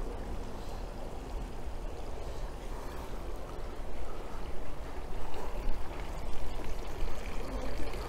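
Steady rush of water running and pouring into outdoor concrete fish ponds, over a low rumble. It grows louder and more uneven about halfway through.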